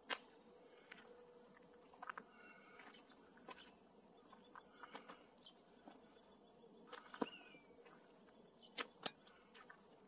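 Near-quiet woodland: scattered faint clicks and rustles, a brief chirping about two seconds in, and a short bird call about seven seconds in.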